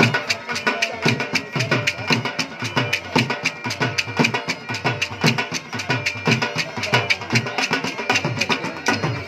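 Several dhols beaten together in a fast, steady jhumar rhythm, with many quick, sharp strokes a second.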